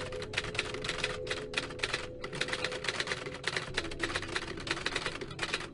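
Typewriter keys clacking in quick, rapid runs with a few brief pauses: a typing sound effect that keeps time with on-screen text being typed out.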